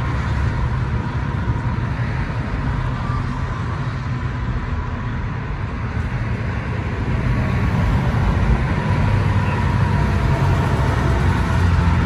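Freeway traffic: cars and trucks passing in a steady rumble of engines and tyres, growing louder about seven seconds in.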